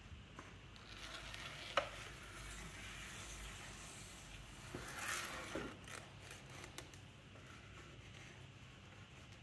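Cutting wire drawn through soft terracotta clay under the foot of a large bowl on a potter's wheel, a faint wet scraping. There is a sharp click about two seconds in and a louder scrape about five seconds in.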